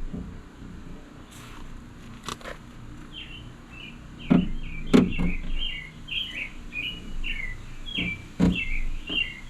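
A bird singing a quick run of repeated chirps, with a few sharp knocks, two close together near the middle and one more near the end.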